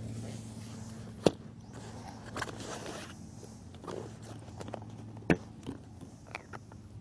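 Handling sounds: sharp plastic clicks, one about a second in and a louder one about five seconds in, with a few smaller ticks near the end, as a foot pump's hose adapter is pulled from an inflatable kayak seat's valve and the valve is closed. A low steady hum runs underneath.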